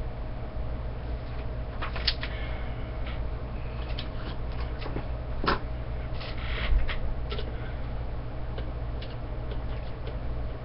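Scattered small clicks and short rustles of hands handling paper and antenna parts, over a steady low hum.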